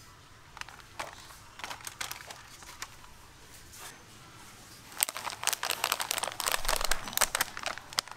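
Plastic snack bags crinkling as they are handled. At first there are only a few scattered crinkles, then from about five seconds in a bag is gripped and pulled from the shelf, giving a dense run of crinkling.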